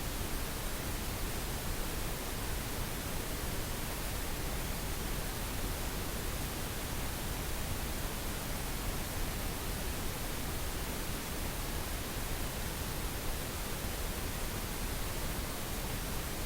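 Steady pink noise: an even, unbroken hiss spread across the whole range, with no change in level.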